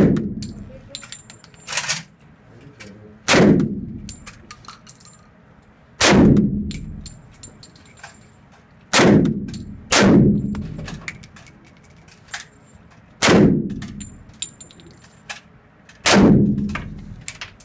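About eight single gunshots fired one at a time, one to three seconds apart, one of them quieter, each with a short ringing tail. Between shots there are light metallic tinkles, like spent brass casings landing.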